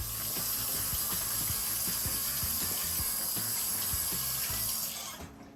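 Water running steadily from a tap into a sink, then shut off about five seconds in.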